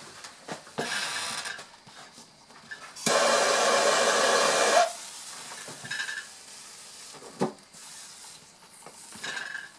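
Handheld gas torch: a short hiss about a second in, then the torch burning with a loud, steady hiss for nearly two seconds before cutting off sharply, as it lights a sparkler. After that comes a fainter fizz from the burning sparkler and a single sharp knock.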